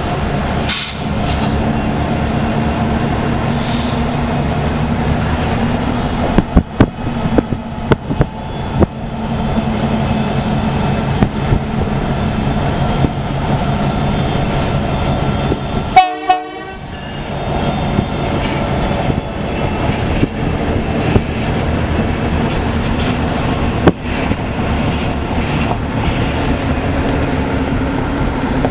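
Diesel-hauled freight train moving, its locomotive's engine droning steadily, with a run of sharp clicks a few seconds in as the wheels cross rail joints.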